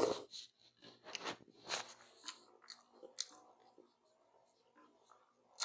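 Close-up eating sounds of a man eating noodles: chewing and slurping with short wet mouth clicks, a louder slurp at the start. A sharp click near the end.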